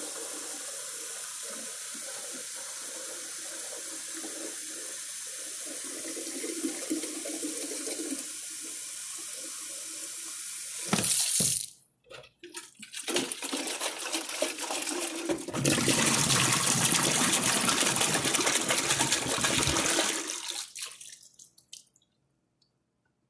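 Water running steadily from a bathroom sink faucet into a plastic one-gallon jug, filling it. About eleven seconds in, the flow breaks up into splashes. Then the water is emptied out into the sink in a loud gush lasting several seconds, which dies away shortly before the end.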